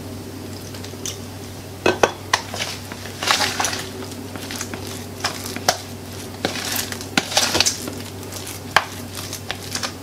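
Metal spoon stirring a thick, lumpy wheat-flour and water batter in a plastic bowl, with irregular clicks and scrapes as it knocks and drags against the bowl's sides.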